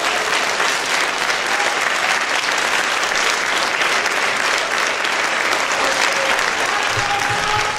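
A crowd applauding: dense, steady clapping from many hands, with a few voices faintly under it.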